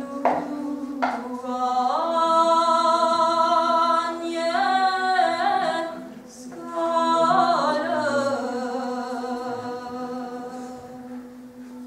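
A woman singing a Romanian doină de jale (lament) a cappella in long held notes with ornamented, wavering turns, over a steady low drone. She breaks off briefly in the middle, then comes back in on a falling line that slowly fades.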